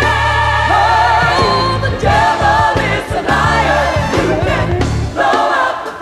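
Gospel choir singing with a lead singer, several voices holding wavering notes with vibrato, over a band with a bass line and drums.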